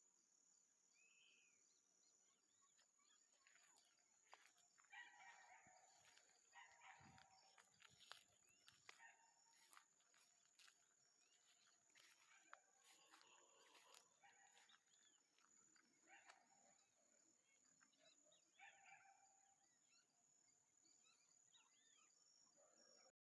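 Faint countryside ambience of animals: birds calling and chirping in many short calls, over a steady thin high insect-like drone.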